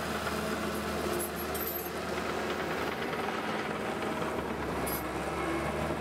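Crawler bulldozer's diesel engine running steadily, with a few short metallic clanks.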